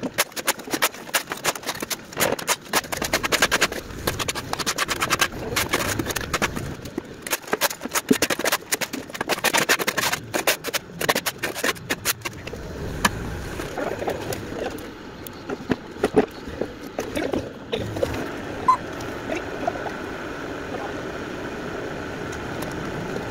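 Bobcat mini excavator at work on demolition debris: dense clattering and scraping for about the first twelve seconds, then the machine running more steadily with occasional knocks.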